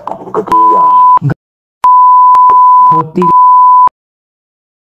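Censor bleep: a loud, steady, high single-tone beep laid over a man's voice coming through a laptop call, three times. A short beep comes about half a second in, then a longer one from about two seconds and a third just after, with a snatch of voice breaking through between them. Each beep cuts off abruptly into dead silence.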